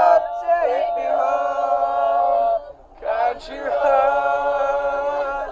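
A group of young people singing together in long held notes, two sustained phrases with a short break about three seconds in.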